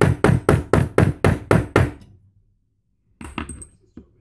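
Hammer striking a steel hand stamp into an aluminium card, a steady run of sharp strikes about four a second that stops about two seconds in. Near the end comes a brief metallic clink with a high ring.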